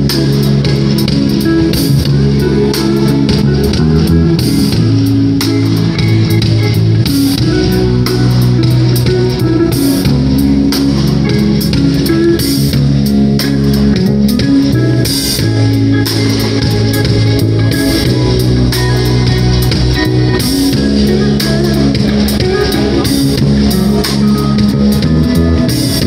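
Live gospel band playing an instrumental: electric bass, electric guitar, keyboard and drum kit with cymbals, the bass notes loudest.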